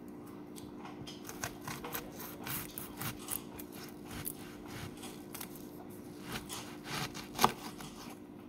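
Fingers peeling and rubbing the dry, papery skin of a red onion on a wooden cutting board: scattered crackles and scratches, with a sharper tap about seven and a half seconds in. A faint steady hum runs underneath.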